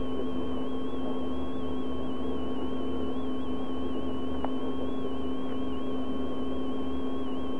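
Steady electrical hum from an old videotaped broadcast's sound track: a low held tone with fainter higher tones, the highest wavering slightly in pitch, over a low pulsing throb. One faint click comes about halfway through.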